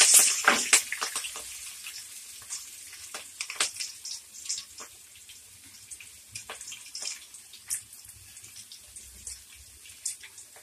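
Hot oil sizzling in a kadai as a tempering of mustard seeds, urad dal and chana dal fries, with sharp pops and crackles. The pops are dense and loud for the first second or so, then thin out to scattered pops.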